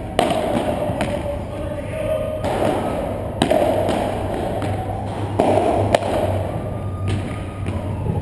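Padel rally: the ball is struck by solid paddles and bounces off the court and walls, giving sharp pops about one to two seconds apart that echo in a large hall.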